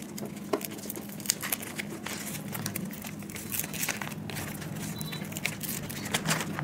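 Paper being handled as a letter's envelope is opened: irregular crinkling and rustling with many short crackles, over a steady low hum.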